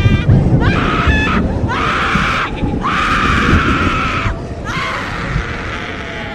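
Horror sound effect of a person screaming: about four harsh, drawn-out screams one after another, each breaking off briefly before the next, over a steady low rumble.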